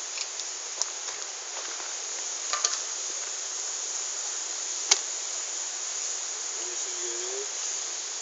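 Steady high-pitched chirring of summer insects, with a few sharp clicks, the loudest nearly five seconds in.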